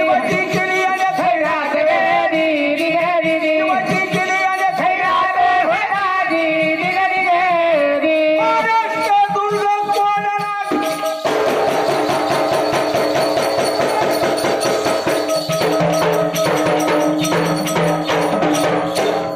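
Marathi powada folk ballad: a male singer's wavering melody over drumming. About 11 seconds in it gives way to steady held notes over fast, dense drumming.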